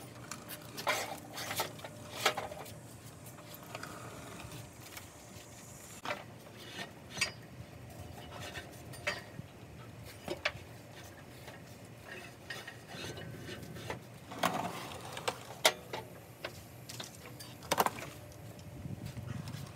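Irregular light knocks, clinks and scraping as rubber hydraulic hoses are pulled through an RV's underside and handled against the metal frame and exhaust pipes.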